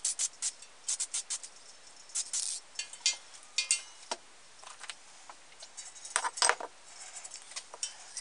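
Aerosol spray-paint can spraying in short hissing bursts of a fraction of a second each, with a few light metallic clinks.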